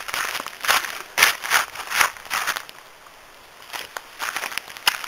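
Footsteps crunching on a gravel trail at a walking pace of two to three steps a second, pausing briefly about three seconds in, then a few lighter scuffs.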